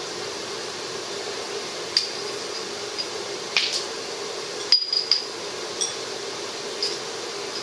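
Light metallic clinks with a short ringing tone, about eight scattered over several seconds and loudest a little past the middle, as the metal bearing and seal driver tool is handled. A steady background hum lies underneath.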